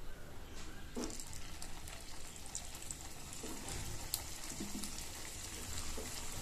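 Hot ghee sizzling faintly and crackling in a paniyaram pan as banana-semolina dough balls are set into the cavities one at a time, with a soft tap as each goes in. The sizzle starts about a second in.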